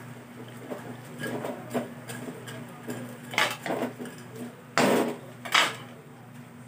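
Metal spatula scraping and clanking against an aluminium wok while stirring pork-skin pieces frying in their rendered fat, with a few loud clanks near the end. A steady low hum runs underneath.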